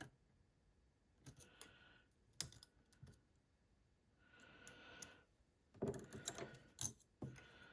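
Lock pick working inside an ASSA Desmo slider lock: faint scattered clicks and three short scratchy stretches as the pick moves the sliders, trying to lift one up a single gate.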